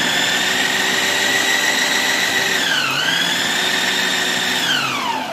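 Electric vegetable chopper's motor running steadily as it grinds minced mutton, with a high whine. The pitch sags briefly about three seconds in, then the motor winds down near the end.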